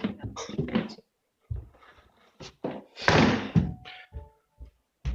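A few separate knocks and thuds, with a louder rustling burst about three seconds in, followed by a few faint short tones.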